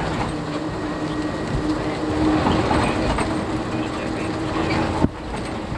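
Steady engine drone and road rumble heard inside a moving coach, with a sharp click about five seconds in and a brief dip in level after it.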